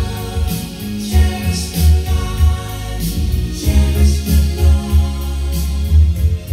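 A song with singing and a strong bass line, played through a Sansui AU-X901 stereo amplifier as a working test.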